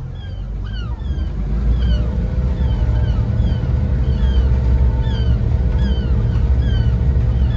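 The boat's twin Yamaha outboard engines running under joystick control, a low rumble that builds over the first second or two and then holds steady as they take up load. Over it, a high falling chirp repeats about twice a second.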